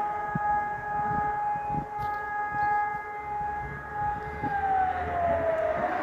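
Hörmann ECN electronic civil-defence siren sounding a steady tone in a test alarm. About four and a half seconds in, its pitch begins to slide down.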